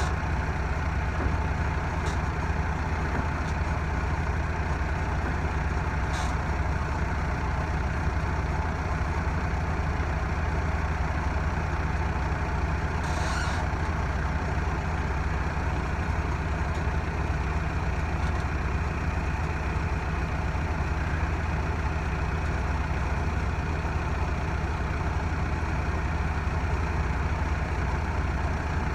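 Backhoe loader's diesel engine idling steadily, with a few faint ticks over it.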